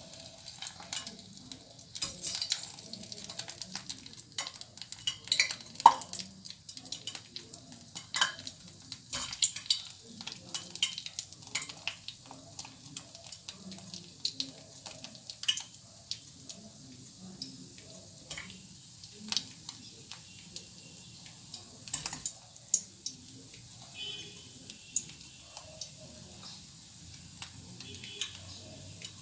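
Zalabia batter balls frying gently in a stainless pan of oil that is still fairly cool, giving a soft sizzle. Irregular sharp clicks and ticks run through it as the batter is squeezed in from a plastic bottle.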